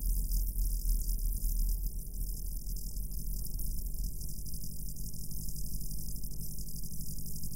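Experimental tape-deck noise piece: a steady low electrical hum with a high hiss above it and faint scattered crackles.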